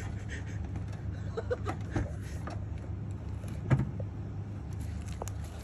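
Four-wheel drive's engine idling steadily while the vehicle sits stuck at an angle on rocks, with scattered small clicks and a louder clunk a little before four seconds in, fitting the driver's door being opened.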